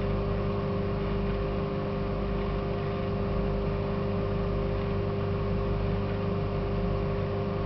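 Microwave oven running with a steady, even hum while an egg heats inside, not yet burst.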